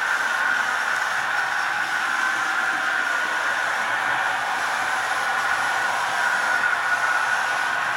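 Märklin HO model trains running on metal track: a steady whirring of small electric motors and rolling wheels, with no change in level.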